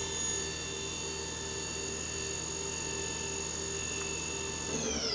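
Tsugami BH38SY CNC Swiss lathe's main spindle running at its maximum 5,000 RPM, a steady high whine. Near the end the pitch starts to fall as the spindle slows down.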